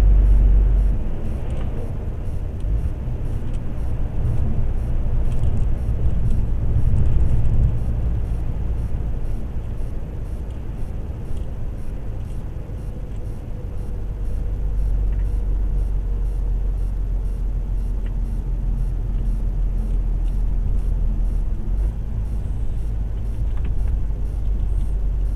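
Truck engine and tyre rumble heard from inside the cab while driving, a steady low drone whose deepest part shifts in strength a couple of times.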